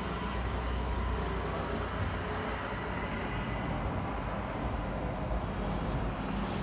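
Steady background noise, a low rumble under an even hiss, with no distinct events.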